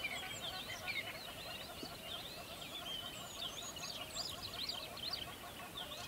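A flock of birds calling all at once: many short chirps and chattering calls overlap in a dense, continuous chorus.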